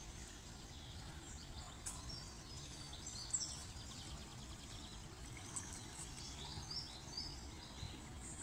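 Small birds chirping and twittering on and off over a steady low rumble of outdoor background noise, with one sharp click about three seconds in.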